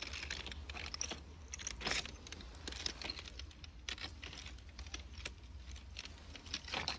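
Irregular clicks and short scraping, rustling sounds of close handling as a peeled cucumber is set down on a steel railway rail above gravel ballast, over a low steady rumble.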